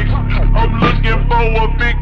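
Hip-hop music with a heavy bass beat and a melodic vocal line.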